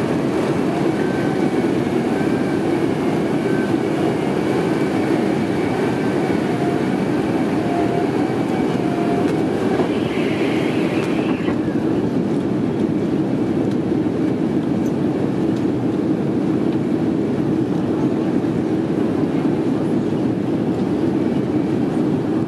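Boeing 767 cabin noise during takeoff and climb-out, heard from a window seat over the wing: a loud, steady jet roar with a faint wavering whine. A little past ten seconds in comes a brief hiss, after which the higher part of the noise drops away and the roar carries on lower and duller.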